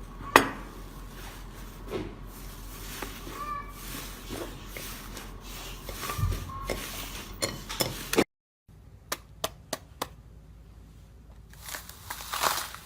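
Slime being squeezed and pressed by hand, giving a run of sticky clicks and small pops. There is a brief break of silence about two thirds through, then a few sharp single pops.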